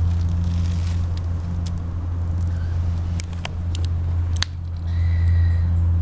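Australian magpie pecking sunflower seeds off stone steps, a scatter of sharp beak clicks and taps over a steady low rumble.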